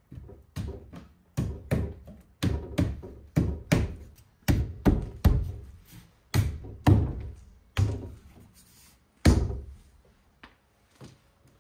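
Wood being struck again and again as a wooden window sill is knocked into place in its opening: about twenty sharp knocks at roughly two a second, the last one after a short pause.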